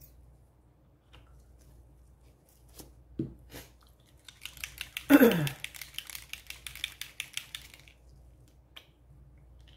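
Gloved hands handling something crinkly. A few clicks come first, then a crackling rustle lasting about four seconds, with a short falling squeak at its loudest point near the middle.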